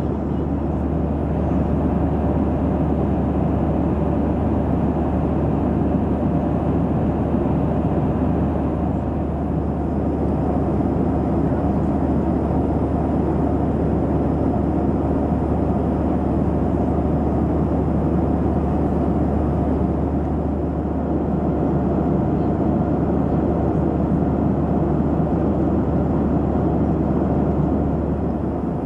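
Steady jet airliner cabin noise in cruise flight: an even rush of airflow and engine noise with a constant low hum, heard from inside the passenger cabin.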